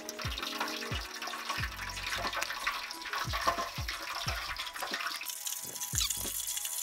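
Background music with a steady beat, over a hissing sound of running or bubbling liquid that grows stronger near the end.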